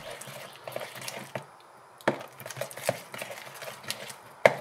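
Wet squelching and irregular clicks of a hand kneading and squishing thick, lumpy glue-and-borax slime against a plastic bowl, with a sharper snap about two seconds in and a louder one near the end. The slime is overactivated from the dry borax.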